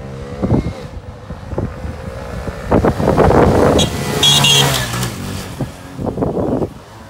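Tao Tao Hellcat 125's small single-cylinder 125cc engine as the bike rides up and passes close by, its pitch rising and falling with the throttle. It is loudest about three to five seconds in, with a brief high whine as it goes past, then fades as the bike pulls away.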